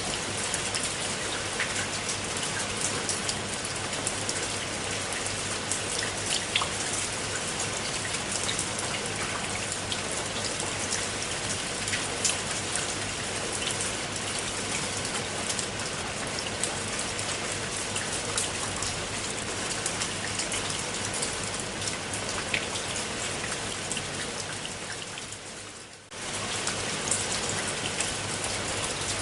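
Steady rain falling on a pool of water, a dense patter of individual drops over a continuous hiss. About three-quarters of the way through it fades down over a second or two and snaps abruptly back in, an edit join in the recording.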